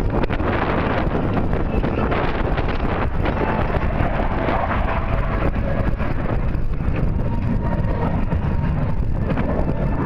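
Steady roar of F-16 jet engines from the Thunderbirds demonstration team, with no clear rise or fall in pitch.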